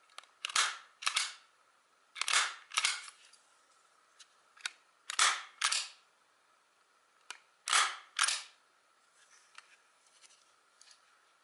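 MAX HD-50F flat-clinch stapler being pressed down and let spring back, four times. Each stroke gives a pair of sharp clacks about half a second apart, with a few lighter clicks between strokes and some faint ticks near the end.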